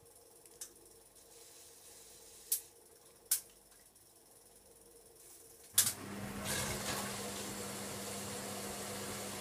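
Hoover Logic washing machine, quiet at first apart from three faint clicks. Near the end a louder click is followed by a steady rush of water with a low hum, as the machine starts moving water in or out of the drum.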